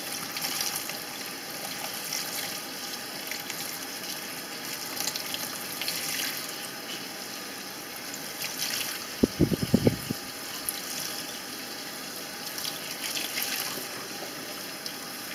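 Water running from a kitchen faucet onto a clump of wool being rinsed by hand in a stainless steel sink, washing the excess pokeberry dye out. A short cluster of knocks comes about nine seconds in.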